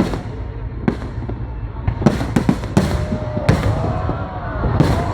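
Aerial fireworks bursting in a series of sharp bangs, coming thicker from about two seconds in, with rising and falling whistling tones in the last second or two.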